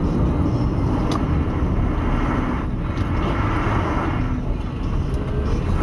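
Steady road and engine noise inside a moving car's cabin, picked up by a dashcam microphone.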